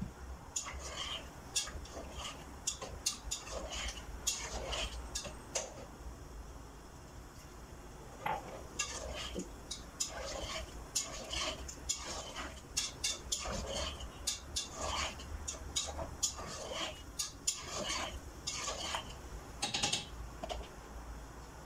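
A utensil stirring chicken and mushrooms in broth in a saucepan, scraping and clinking against the pot in quick, irregular strokes, with a short pause partway through.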